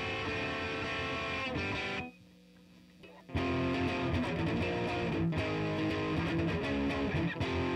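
Electric guitar played through a tube (valve) guitar amp, miked at the speaker cabinet with a USB condenser microphone: chords ring out, the playing stops about two seconds in, leaving only a faint steady hum, and strumming resumes about a second later.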